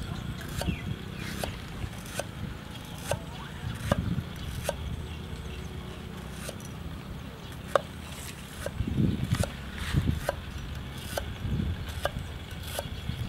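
Cleaver chopping garlic cloves on a round wooden chopping block, a steady knock a little more than once a second, over a low background rumble.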